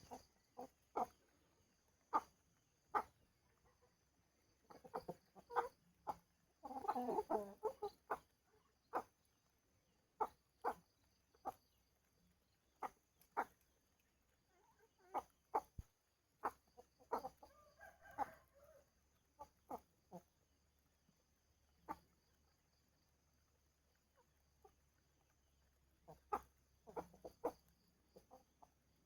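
Chickens clucking in short, separate calls, with a denser burst of calling about seven seconds in and another around eighteen seconds in.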